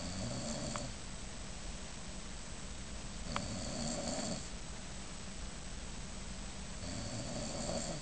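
A sleeping man snoring through his open mouth. Three snores, each about a second long, come at a slow, even pace about three and a half seconds apart.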